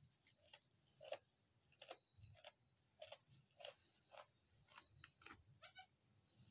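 Faint, irregular crackling and rustling of dry straw bedding as a newborn kid goat shifts its hooves.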